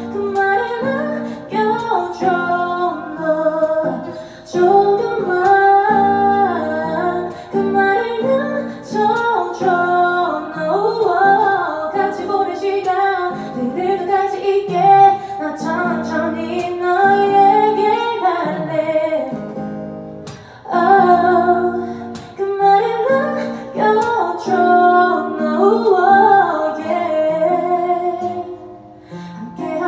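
A woman singing a slow song into a microphone, accompanied by an acoustic guitar.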